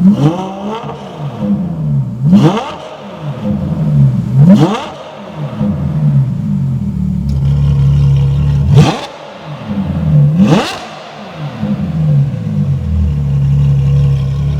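Ferrari 812 Competizione's 6.5-litre V12 revved through a Novitec exhaust: five sharp throttle blips that rise fast and drop back to idle. It then idles steadily for the last few seconds.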